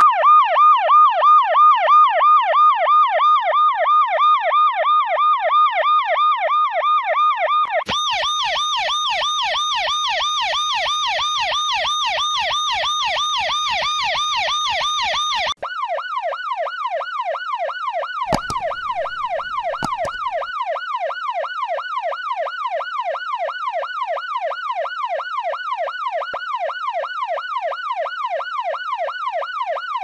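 Electronic emergency-vehicle sirens in a fast yelp, the pitch rising and falling about four times a second. The siren tone switches abruptly about eight seconds in and again about halfway through, the middle one brighter and higher. A couple of brief clicks come a few seconds after the second switch.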